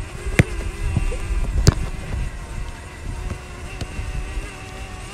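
Football being kicked: two sharp thuds about half a second and a second and a half in, the second the louder, with a fainter knock near four seconds. Under them is a low rumble and a steady hum.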